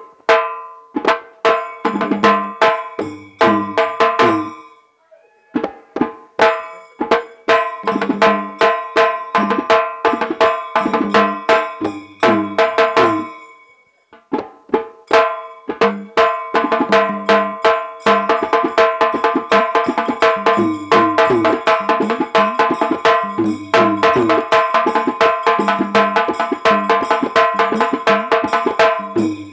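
Hand drums playing a fast, steady folk rhythm: a decorated double-headed drum on a stand and a small metal-shelled drum, with a steady held tone sounding underneath. The playing breaks off briefly about five seconds in and again around fourteen seconds, then starts again.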